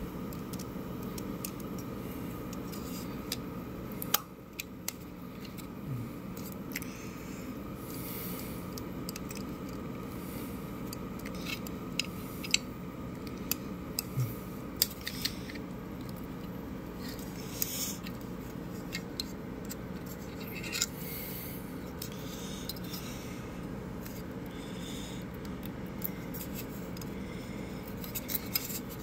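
Scattered light clicks and scrapes of a small plastic computer fan and tweezers being handled, with one sharper click about four seconds in, over a steady low hum.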